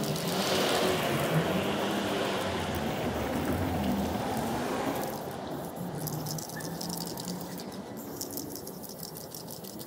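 A broad rushing hiss that fades out about five seconds in, followed by a spray paint can being shaken, its mixing ball rattling in quick clicks.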